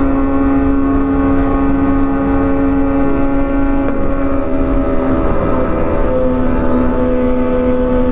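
Kawasaki ZX-25R four-cylinder engine at cruising revs through an Arrow aftermarket exhaust, holding a steady high note that eases briefly near the middle, with wind rumble on the microphone.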